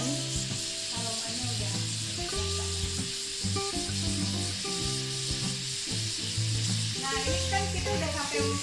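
Beef rolls sizzling steadily in a hot iron pan, with background music underneath.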